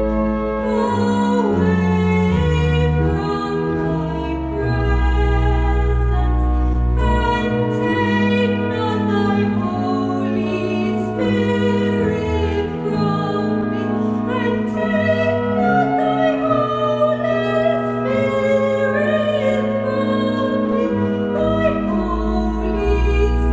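Sung church music: a singing voice with wavering held notes over sustained chords and long steady bass notes.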